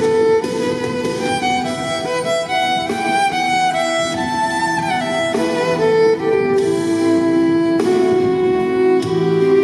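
Violin playing a melody, amplified through a loudspeaker on a stand, the notes held and gliding from one to the next.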